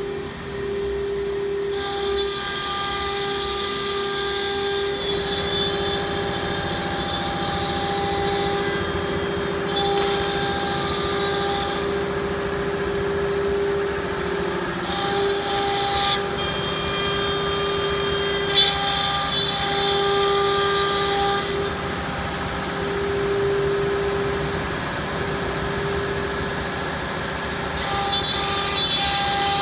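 ATC CNC router's 9 kW spindle running with a steady high whine as its bit cuts through a board panel. A harsher hiss of the cut comes and goes several times as the tool moves through its passes.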